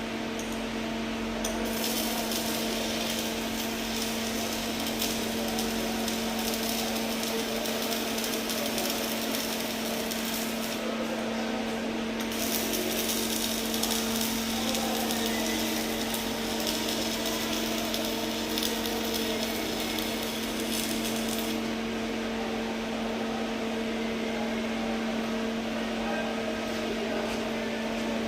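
Welding arc crackling and hissing in two runs of about nine seconds each, separated by a short break, over a steady electrical hum.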